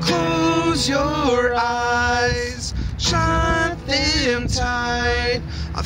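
Man singing high, long held notes in two phrases that bend up and down in pitch, with his acoustic guitar underneath.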